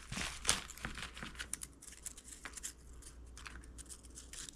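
Paper slips rustling and crinkling as a hand rummages through them in a hat: a run of light, quick rustles, louder in the first second or so and then fainter.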